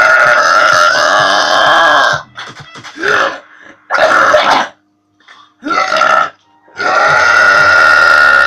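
A young woman burping loudly several times: one long drawn-out belch, three shorter ones, then another long belch near the end.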